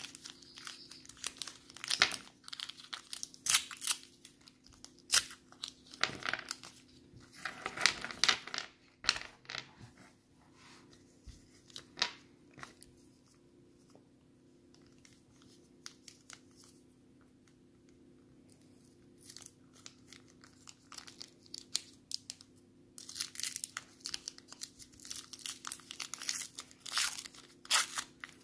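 Paper wrappers of Maoam Bloxx chewy candies being torn open and crinkled by hand: bursts of crackling and tearing, dense at first, sparse through the middle, then busy again near the end.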